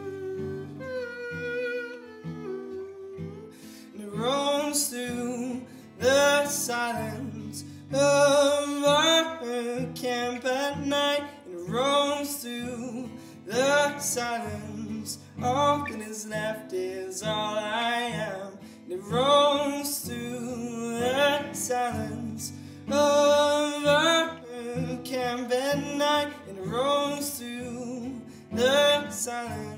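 Acoustic guitar played in a steady rhythm, alone for the first few seconds. From about four seconds in, a man's voice sings a wordless melody over it.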